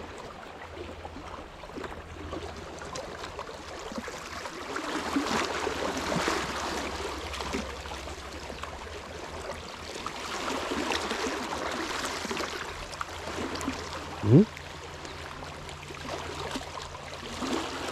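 Small sea waves lapping and washing at the shoreline, swelling and easing every few seconds. A brief rising squeak about fourteen seconds in is the loudest moment.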